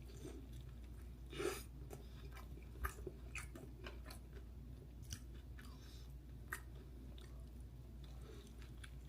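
A person chewing a mouthful of kimchi dumpling, with soft, scattered wet mouth clicks.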